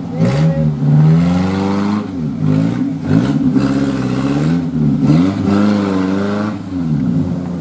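Off-road 4x4's engine revving hard, its pitch climbing and falling back several times in quick succession.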